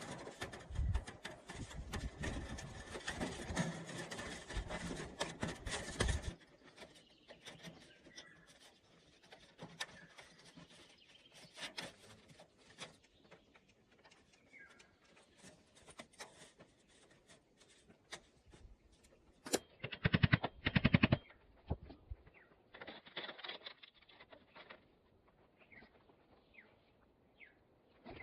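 Rapid runs of knocking and clattering, dense for the first several seconds, then sparse ticks, with a fast, loud, regular burst of strikes about twenty seconds in and a shorter one soon after. A few birds chirp in between.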